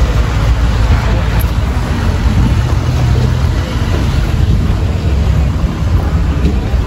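Wind buffeting the microphone: a loud, unsteady low rumble with a noisy hiss above it.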